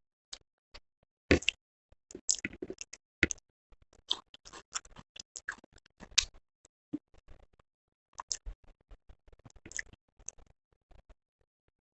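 Close-miked eating sounds: chewing with irregular wet mouth clicks and smacks, in clusters separated by short pauses.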